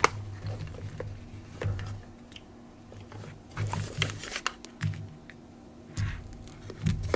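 Handling noise from a pair of plastic FPV goggles being turned over in the hands and switched on: a sharp click at the start, then scattered light clicks, taps and rustles with low bumps against the microphone.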